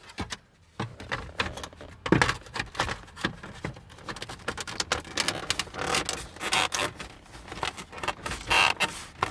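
Plastic trim cover of a Chevrolet Silverado center console lid being handled and fitted back into place: a run of small plastic clicks, taps and scrapes.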